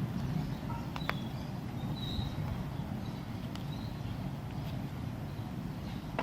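A knife cutting into soft soap, with two light clicks about a second in, over a steady low background rumble.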